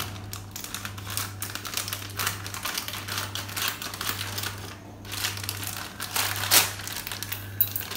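A foil potato-chip packet being handled and cut open with scissors: irregular crinkling and snipping, loudest about six and a half seconds in, over a steady low hum.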